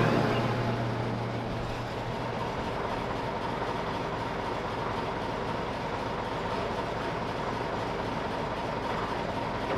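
The diesel engine of a 1954 Caterpillar No. 6 track shovel idling steadily.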